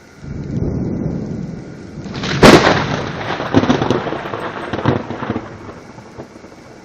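Thunder: a low rumble sets in, then a sharp, loud crack about two and a half seconds in, followed by a few rolling crackles that die away over the next few seconds. Steady rain hisses underneath.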